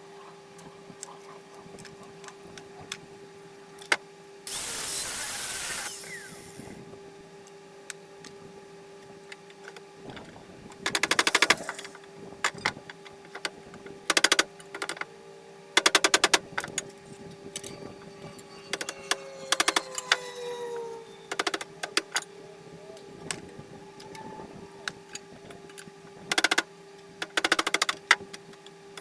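Air-over-hydraulic press pump chattering in short, very rapid bursts, about seven times, driven by the foot pedal; a burst of hissing air comes before them. A steady hum runs underneath.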